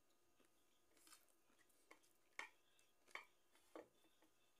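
Quiet sounds of eating by hand from a ceramic plate of rice and crisp dried fish: four or five short, sharp clicks and crackles about half a second apart through the middle.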